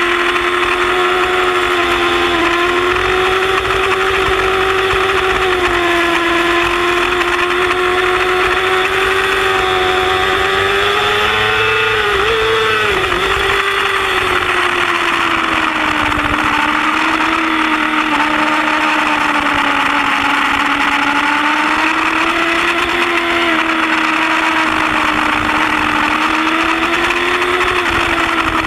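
Yamaha R6 inline-four sport bike engine running at high revs at racing speed, its pitch rising and falling gently through the corners, with a brief dip about twelve seconds in, over steady wind rush.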